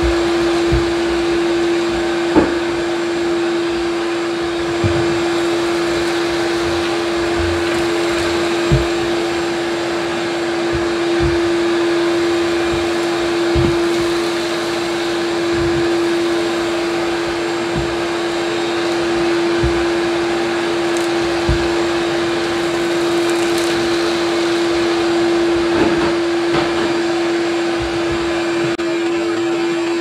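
Ridgid shop vac running steadily with a constant hum over a loud rush of suction, vacuuming debris off a floor. There are occasional short knocks throughout.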